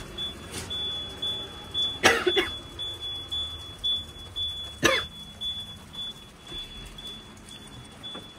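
A high-pitched electronic warning beep sounds on and off in the Freightliner MT55 box truck's cab. Loud knocks come about two seconds in and again about five seconds in.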